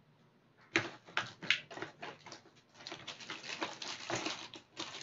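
Thin clear plastic bag crinkling and rustling in the hands, with small clicks of hard plastic parts, as a tool charger is wrapped and packed; it starts under a second in and goes on in irregular crackles.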